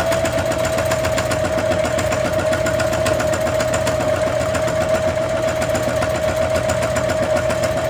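Electric sewing machine running at a steady speed, sewing a seam through a pillow: an even motor whine over fast, rapid needle strokes.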